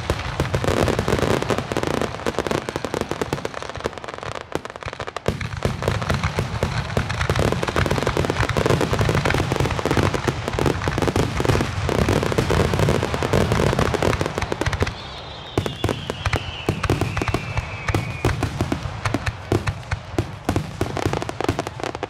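Fireworks finale barrage: aerial shells bursting in rapid, overlapping succession, a near-continuous run of booms and crackles. About two-thirds of the way through, a descending whistle sounds over the bangs for about three seconds.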